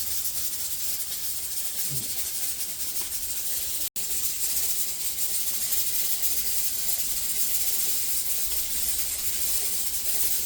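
A steady hiss of food cooking on a stove, broken by a momentary total dropout about four seconds in.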